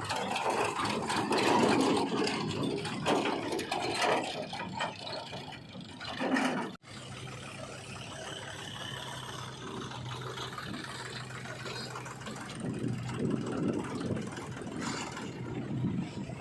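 Diesel engine of heavy farm and earthmoving machinery running, with rattling and knocks for the first several seconds. After a sudden break about seven seconds in, an engine runs steadily with an even low note.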